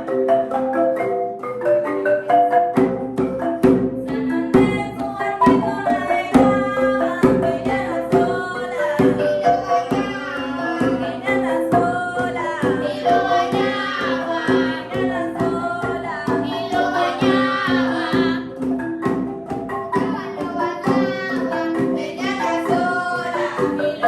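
Currulao music. A marimba de chonta plays a repeating pattern, drums join about three seconds in, and singing comes in soon after.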